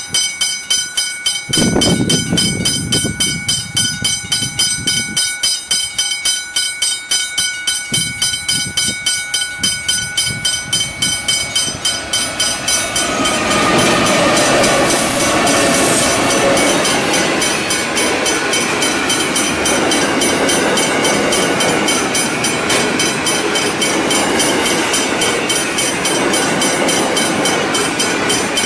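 Level crossing bells ringing rapidly and evenly. About 13 seconds in, a Pacific National NR-class diesel-electric locomotive comes through hauling steel-coil wagons, and its engine noise and the wheels' clatter take over as the loudest sound while the bells keep ringing.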